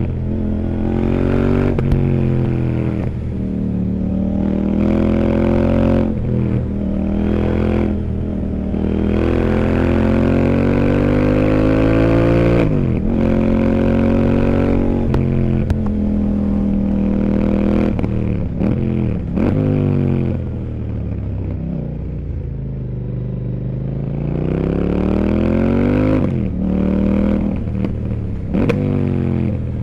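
CFMOTO 800NK Sport's parallel-twin engine under way, repeatedly pulling up in pitch and then dropping sharply at gear changes and when the throttle is closed, about ten times over the stretch.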